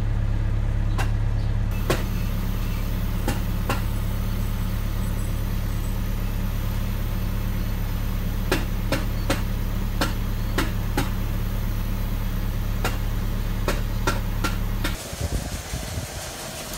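A telehandler's diesel engine idling steadily, with sharp hammer strikes in irregular groups as Tyvek house wrap is fastened to the wall. The engine sound cuts off near the end.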